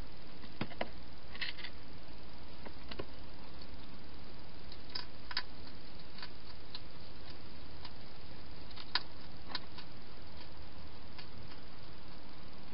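Wild hedgehog eating from a bowl inside a plastic feeding box: irregular crunching clicks, the loudest about nine seconds in, over a steady hiss.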